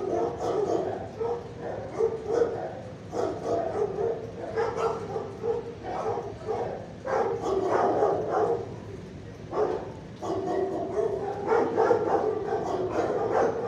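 Several dogs barking and yipping at once in shelter kennels, with overlapping barks that keep up without a break.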